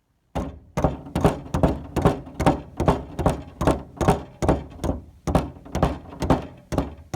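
A steady run of knocks, about two and a half a second, starting a moment in.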